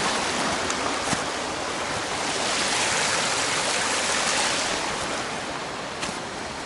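Flowing stream water, a steady rushing hiss that grows fainter toward the end.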